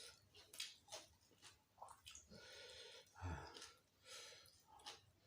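Faint, close-miked chewing and wet mouth sounds of someone eating, with a few soft clicks and a brief breath-like rustle partway through.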